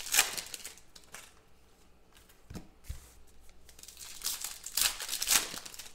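Foil trading-card pack wrapper crinkling and being torn open by hand, in a burst at the start and again about four to five seconds in.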